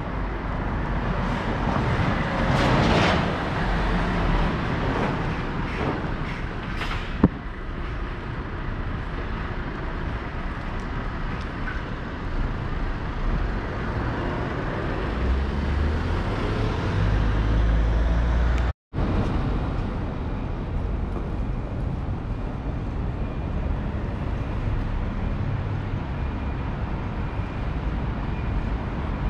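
Road traffic on a busy city street, cars and buses passing with a steady rumble. There are several short hissing surges in the first seven seconds, and the sound drops out completely for a moment about two-thirds of the way through.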